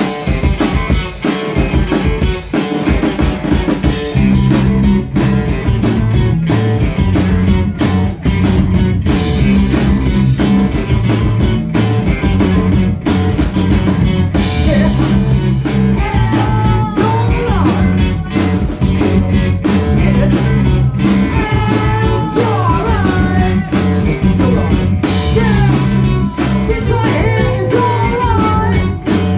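Live rock band playing loud: drums at first, with bass and guitar coming in about four seconds in. A singing voice joins about halfway through.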